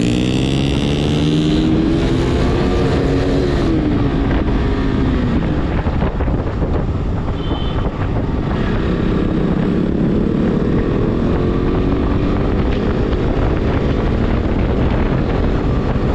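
Motorcycle engine under way, the revs climbing over the first couple of seconds, easing off, then climbing again about halfway through, with wind buffeting the microphone.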